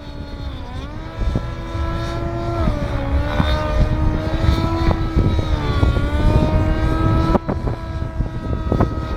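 Radio-controlled model aircraft flying, its motor whine steady in pitch but dipping and rising again several times as it manoeuvres, with strong wind buffeting the microphone.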